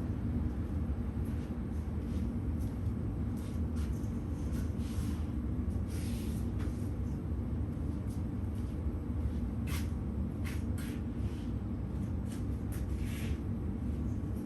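Rustling and light clicks of new screen mesh being laid out and handled over a screen door frame, several short ones about six seconds in and between ten and thirteen seconds. Under it runs a steady low rumble.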